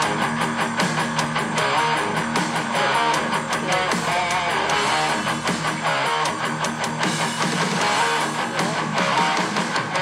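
Background music: a guitar-led song playing steadily.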